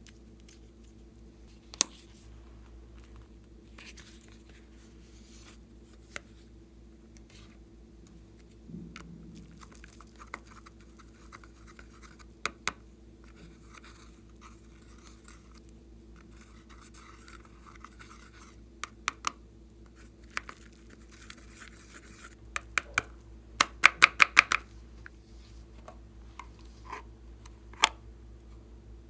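Glossy slime being squeezed and stretched by hand, with scattered sharp pops and clicks of trapped air. Stretches of faint crackling come between them, and a quick run of louder pops comes near the end.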